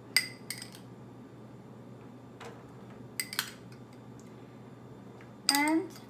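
A metal spoon clinking and scraping against a small glass bowl and a stainless steel mixing bowl while scooping chopped onion. There are several separate sharp clinks, each with a brief ring.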